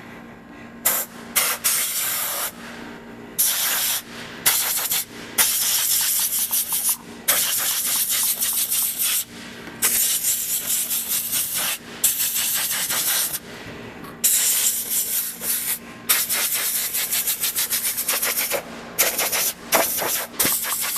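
Compressed nitrogen blown through an ice machine's condenser coil in short bursts: a loud hiss that starts and stops over and over, each blast lasting from under a second to about three seconds, over a faint steady low hum.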